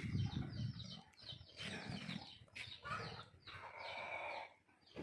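Chickens clucking, with many quick, high chirps repeating throughout.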